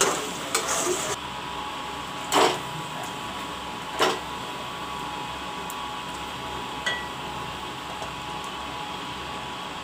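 Metal utensils knocking against a metal cooking pan and serving bowl as cooked chicken curry is tipped and scraped out: a few sharp knocks, the loudest about two and a half and four seconds in, over a steady background hum.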